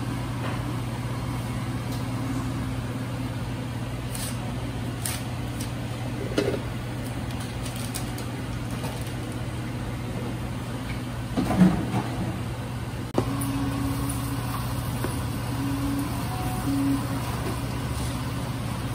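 Steady low background hum with scattered clicks and knocks of a metal spatula and utensils at a flat-top griddle; a louder clatter comes about twelve seconds in.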